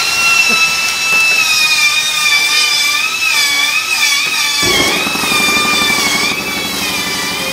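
Handheld grinder cutting metal, a high whine whose pitch wavers as the load changes. A little past halfway a lower, steady rumble joins in underneath.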